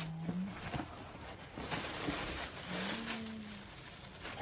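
Plastic packaging rustling and crinkling as a mailed package is handled and opened, with two short low hums, one at the start and one about three seconds in.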